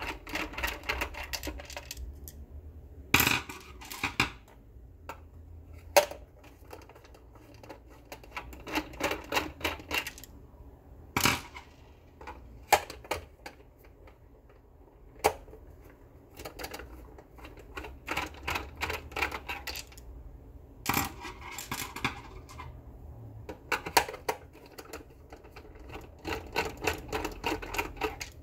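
Screwdriver backing screws out of a Monster Blaster Black speaker's end panel: bursts of quick clicking as each screw turns, with several single sharp clicks between them.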